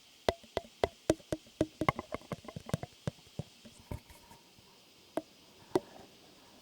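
ASMR tapping: a quick, irregular run of sharp taps or clicks for about the first three seconds, then a few single taps spaced out, one of the loudest near the end.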